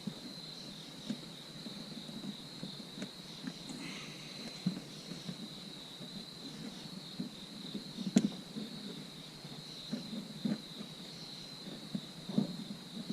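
Soft, irregular taps and clicks of a dash cam power cable being pressed and tucked into a car's plastic interior trim, with one sharper click about eight seconds in. A faint steady high-pitched tone sits behind it.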